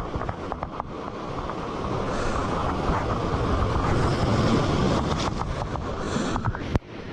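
Wind buffeting the microphone over surf washing across shore rocks, swelling in the middle, with a sharp knock near the end.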